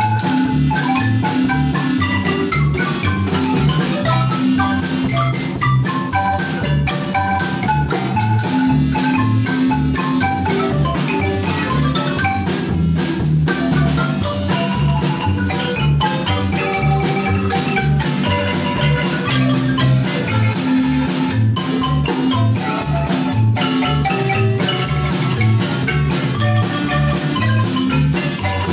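Marimba ensemble playing a lively piece: two wooden-keyed marimbas, each with several mallet players, running quick melodic notes over a steady bass pulse, backed by a drum kit with cymbals.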